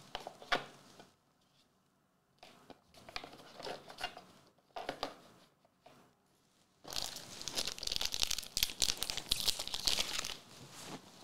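A trading-card booster pack's wrapper being torn open and crinkled, a dense crackling run from about seven seconds in until near the end. A few light handling clicks and rustles come before it.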